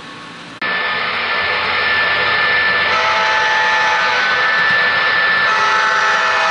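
Onboard sound system of an MTH ES44AC GEVO model diesel locomotive playing its engine sound: a steady drone with several high whining tones. It cuts in loudly about half a second in and grows a little louder as the locomotive approaches.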